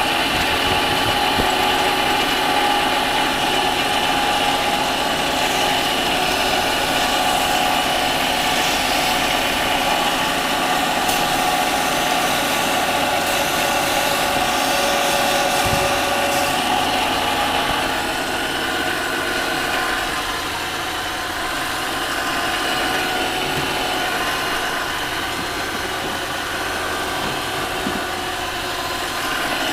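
Harbor Freight mini lathe running, its motor and gears giving a steady whine with several held tones. The sound eases off slightly about two-thirds of the way through.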